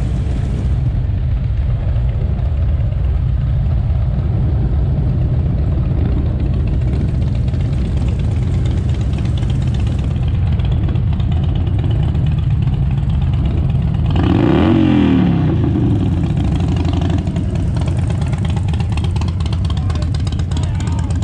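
Vehicle engine and road noise, a steady low rumble, with a louder rush lasting about two seconds around fourteen seconds in.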